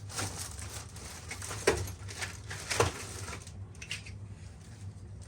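A few short knocks and rattles of hard plastic and tools being handled in a toolbox drawer, the sharpest about a third of the way in and another a second later, with lighter ticks near the end, over a low steady hum.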